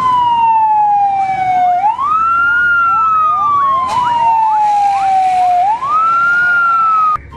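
Fire truck siren wailing. Each cycle rises quickly and then slowly falls, repeating about every four seconds. A second siren with quicker rising sweeps overlaps in the middle, and the sound cuts off just before the end.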